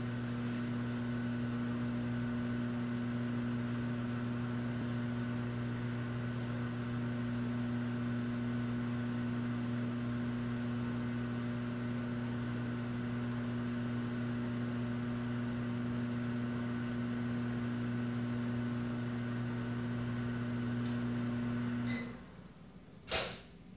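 Steady low machine hum made of several held tones, which cuts off abruptly about 22 seconds in; a single sharp click follows about a second later.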